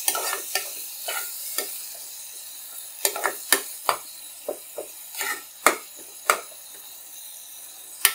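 Steel spoon scraping and tapping against a non-stick kadhai at an uneven pace as chopped spinach is stirred, over a faint steady sizzle of the spinach cooking in its own liquid.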